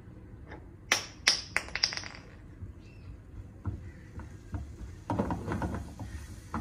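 Red silicone spatula knocking and scraping against a nonstick frying pan while stirring flour into oil to cook a roux: a quick run of sharp knocks about a second in, then a softer patter of scraping taps in the second half.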